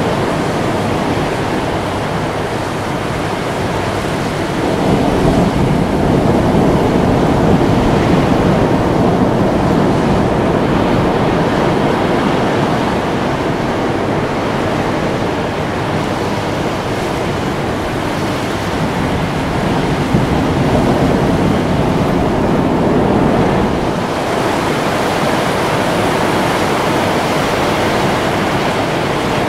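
Ocean surf: a steady wash of waves breaking on a beach. It swells louder a few seconds in and again a little past the middle.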